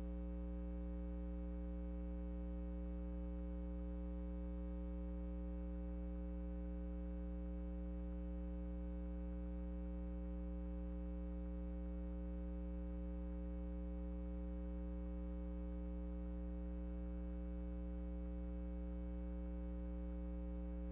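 Steady low electrical mains hum, buzzy with many overtones and unchanging.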